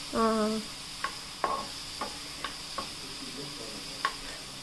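A spatula scraping and tapping against a non-stick frying pan as chopped onions are stirred, with about six sharp taps, under a steady sizzle of the onions frying.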